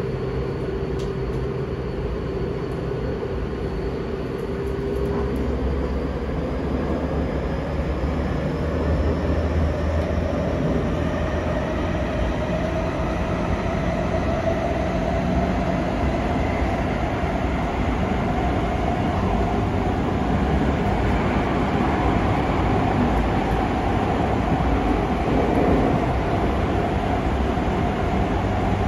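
Tobu 50050-series electric train running, heard from inside the passenger car: steady wheel and rail rumble under the whine of its Hitachi IGBT-VVVF inverter and traction motors. The whine rises slowly in pitch as the train gathers speed.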